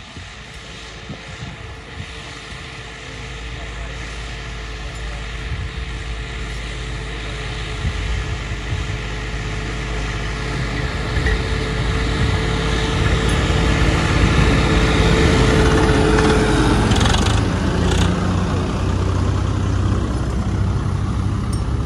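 John Deere diesel tractor working under load while pulling a disc harrow through ploughed soil. It grows steadily louder as it approaches, with a steady whine that drops away as it passes close by about 17 seconds in.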